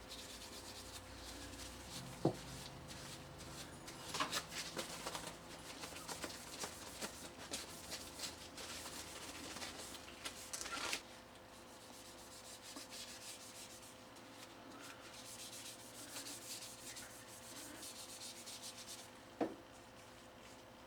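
Fine steel wool rubbing back and forth on a Bakelite utensil handle to smooth its surface. The scratching is heavier in the first half and lighter later, with a sharp knock about two seconds in and another near the end.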